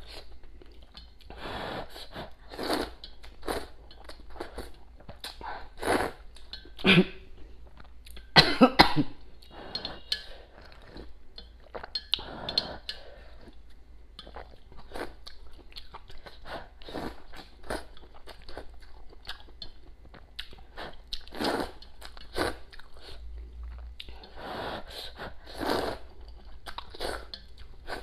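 A person eating rice noodles close to the microphone: repeated wet slurps of noodles and broth between bouts of chewing, in short irregular bursts. The loudest slurps come about 7 and 9 seconds in.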